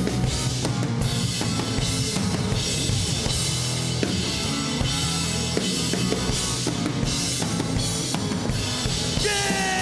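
Live rock band playing an instrumental passage: drum kit with bass drum and snare driving the beat under electric bass and electric guitars. Near the end a high note slides down in pitch.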